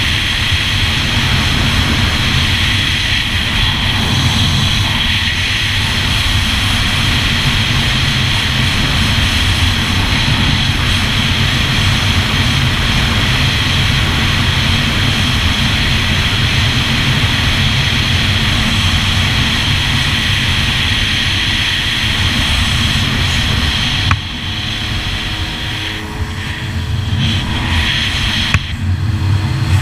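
Engine of a 2001 Yamaha GP1200R WaveRunner (two-stroke triple) running steadily at speed, a loud, even high-pitched drone mixed with water rush. About 24 seconds in, the sound drops and wavers for several seconds as the craft carves a turn throwing spray, then comes back up near the end.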